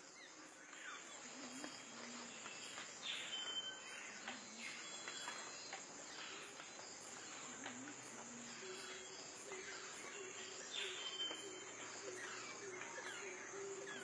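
Forest ambience: a steady high insect drone with scattered short bird calls. A low steady hum comes in during the second half.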